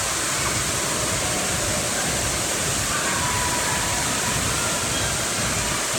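Steady rush of spraying and splashing water from indoor waterpark fountains, with faint distant voices under it.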